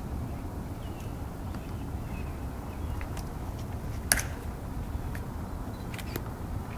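A few sharp clicks, the loudest a single snap about four seconds in, over a low steady rumble.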